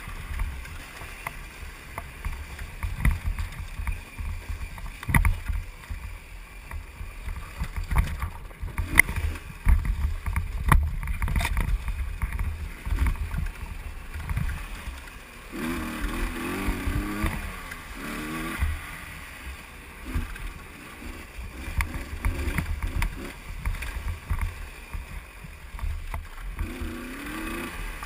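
Husqvarna WRE125 two-stroke enduro bike engine running while riding a rough dirt trail, with wind buffeting the helmet-mounted microphone and repeated knocks from bumps and rocks. About halfway through and again near the end the engine revs up and down.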